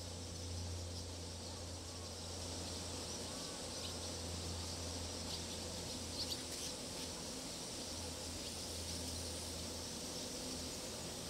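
A steady high-pitched drone of insects over a steady low hum, with a few brief high chirps about halfway through.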